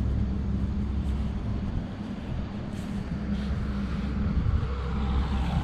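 Steady low hum of an engine running at an even speed, with a short dip about two seconds in and again near the end.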